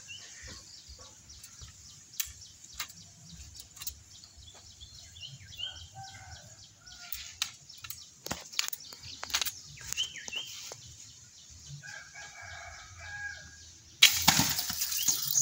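Wooden speargun with doubled 14 mm rubber bands and a reel, fired: a sudden loud snap and whoosh as the bands release and the shaft and line shoot out, near the end.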